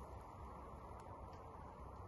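Metal grill tongs clicking faintly a few times as they turn herring on a charcoal grill, over a steady low background rumble.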